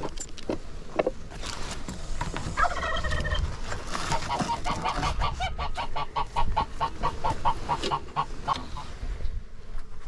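Domestic fowl calling: a short burst of calls about two and a half seconds in, then a fast run of repeated short calls, about four a second, through most of the second half.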